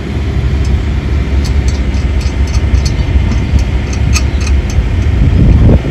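A steady low rumble of vehicle noise, with faint light ticks, swelling to its loudest just before the end and then dropping off sharply.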